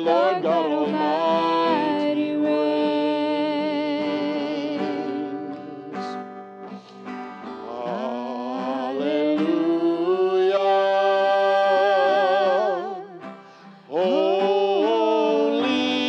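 A man singing a slow worship song over an acoustic guitar. He holds three long notes with vibrato, with short dips in between.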